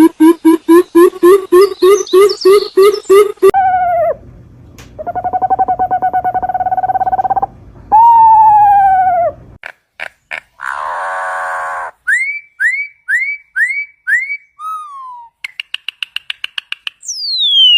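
A string of different bird calls played back to back, each clip cut off sharply: a rapid repeated call at about four notes a second, a buzzy trill, a falling call, a harsh squawk, five rising chirps, a fast trill and a steeply falling whistle.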